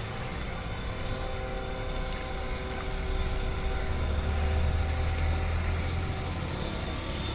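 Electric 12 V 775 motor of an RC model boat running steadily with a steady whine. A low rumble swells and grows louder between about three and six seconds in.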